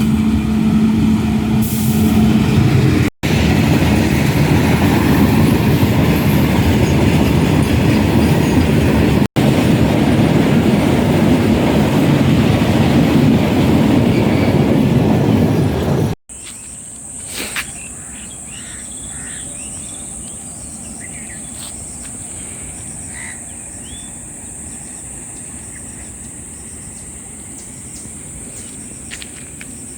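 Train running on the rails: a loud, steady rumble and rush, cut off twice for an instant. About sixteen seconds in it cuts off abruptly, and a steady, high insect drone with scattered bird calls takes over.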